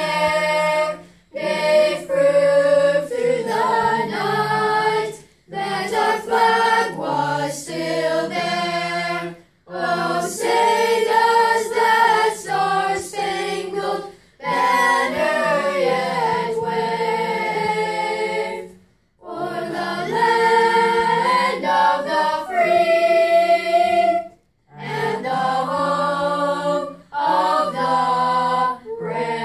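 A boys' choir of eight voices singing a national anthem a cappella, in long held phrases broken by brief pauses for breath.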